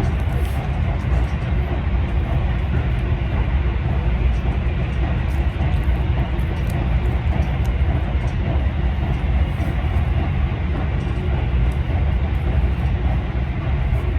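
Steady low rumble of a Keisei Skyliner train running, heard inside the passenger car, with wheel and track noise over it.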